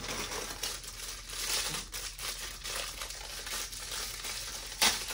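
Packaging crinkling and rustling as it is handled and pulled open, with one sharp click near the end.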